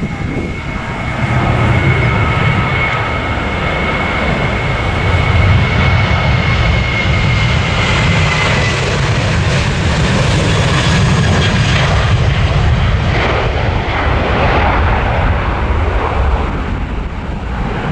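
A Boeing 737-800's twin CFM56-7B turbofans at takeoff thrust as the jet rolls, lifts off and climbs away: a deep, steady rumble under a high fan whine. The sound swells about a second and a half in, and the whine drops slightly in pitch about eight seconds in as the jet passes.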